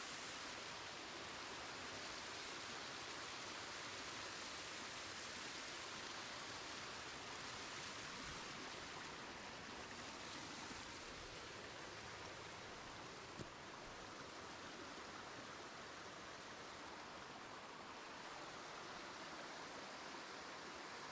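Mountain stream water rushing steadily over rock down a small waterfall, with a single brief knock about thirteen seconds in.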